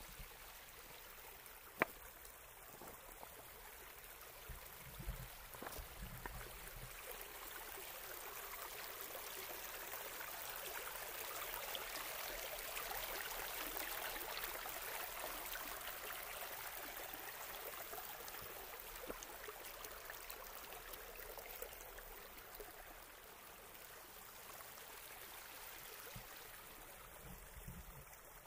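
Creek water rushing and splashing over rocks in a small cascade, a steady hiss that grows louder through the middle and then eases back to a gentler flow. A single sharp click comes about two seconds in.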